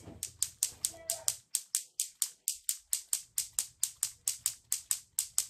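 Plastic clacker toy being worked: its two balls knock together in a steady, rapid clacking, about five clacks a second.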